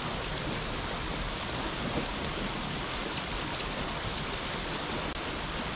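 Steady rush of flowing river water, with a small bird's quick series of high chirps starting about three seconds in and lasting about two seconds.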